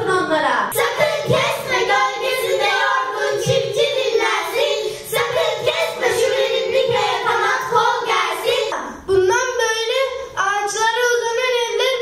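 Children singing into handheld microphones.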